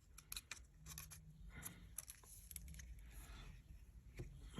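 Near silence with a scatter of faint light ticks and scrapes: the small parts of an iPhone home button and screen assembly being handled and pressed into place.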